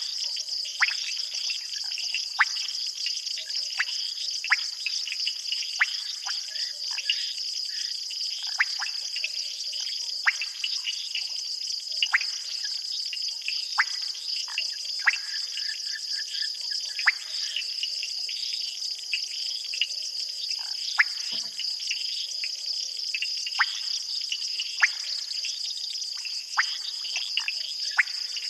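Night insect chorus: crickets trilling in a steady, high, shrill band, with short sharp chirps cutting through every second or two.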